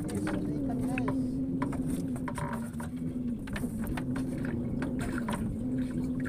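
A small fishing boat's engine running at idle, a steady low hum, with scattered light knocks and clicks.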